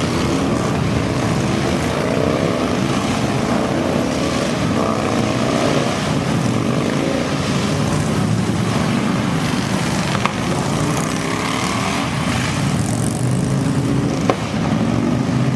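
A long pack of motorcycles riding past in a steady stream, many engines running at once.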